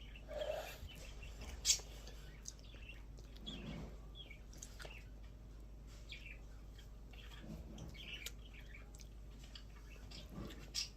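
Faint eating sounds of a chocolate ice cream cone being bitten and chewed, with sharp crunches of the wafer cone, the loudest about two seconds in and again near the end.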